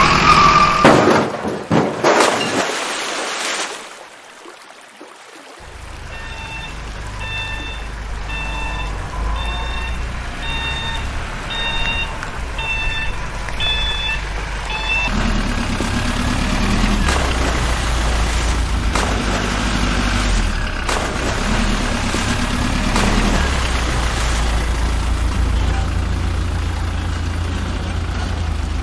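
Heavy diesel machinery running with a low, steady engine drone, after a loud burst of noise in the first couple of seconds. From about six seconds in, a reversing alarm beeps a little more than once a second for about nine seconds, then the engine carries on alone, its pitch rising and falling slightly.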